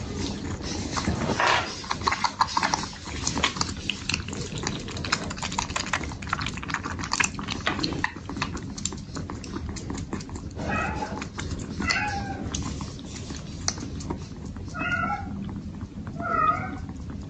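Kittens suckling and lapping at a silicone milk feeder, making quick wet clicking sounds, then about four short, high kitten mews in the second half.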